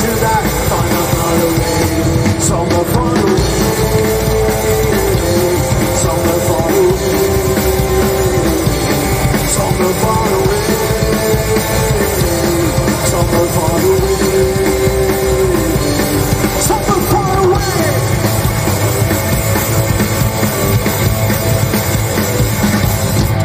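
Live rockabilly band playing loud through a PA: upright double bass, drum kit and electric guitar, with a held melody line that steps up and down.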